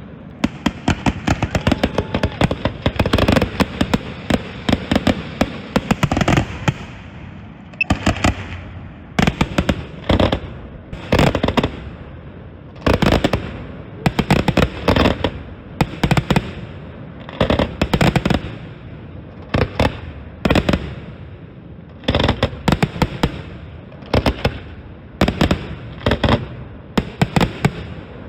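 Fireworks finale: aerial shells bursting in rapid volleys, dense and continuous for the first several seconds, then clusters of sharp bangs about once a second with a rumbling tail between them.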